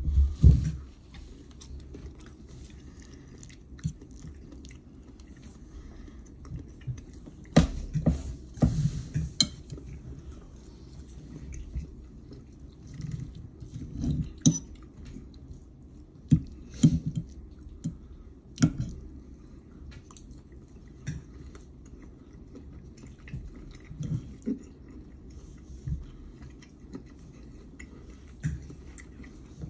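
Someone eating close to the microphone: chewing, with scattered clicks and scrapes of a fork on a painted ceramic plate.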